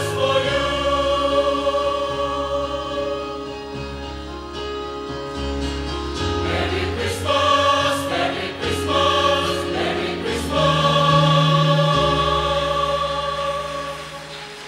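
Mixed choir of men's and women's voices singing in harmony, holding long sustained chords that change every few seconds. The last chord is held for a few seconds and fades away near the end.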